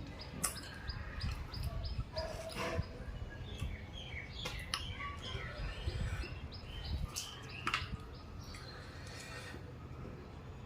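Small birds chirping in quick, repeated short calls, over the clicks and smacks of someone chewing food.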